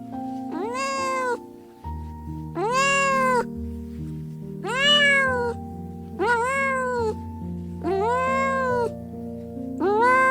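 A cat meowing over and over, six drawn-out meows about two seconds apart, each rising and then falling in pitch, over background music.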